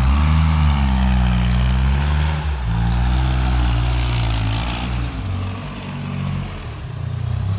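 Sonalika compact tractor's diesel engine running under load as it works loose soil with a rear-mounted implement. The engine note rises and falls several times as the revs change.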